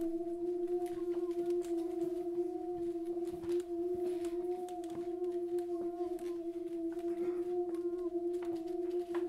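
A steady drone held on one mid-range note, with a fainter overtone an octave above, wavering slightly in pitch. Faint small clicks and rustles sound over it.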